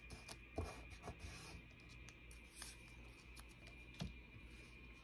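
Faint rustling and rubbing of paper scraps being smoothed and handled on a collage sheet, with a few soft taps.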